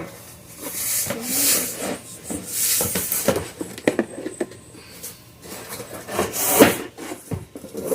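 Cardboard packing and flat-pack wooden panels being handled and pulled out of the box: several rubbing, scraping swells with light knocks in between.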